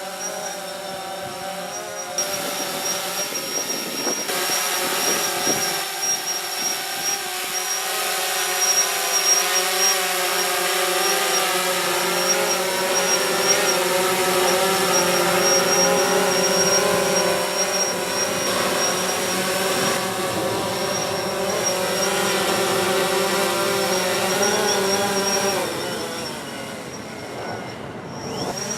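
DJI Phantom 3 quadcopter's motors and propellers spinning, a steady buzzing hum with a thin high whine over it. The pitch shifts slowly, then dips and the level drops near the end before picking up again.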